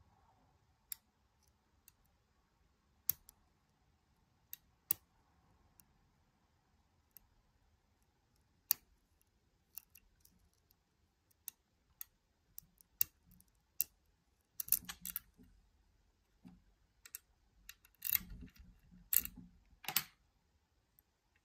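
Lock picks working a Nemef NF2 pin-tumbler euro cylinder: sparse, sharp, small metallic clicks as the pins are worked under tension. In the last few seconds, louder rattling and clattering as the pick and tension wrench are handled and pulled out of the lock.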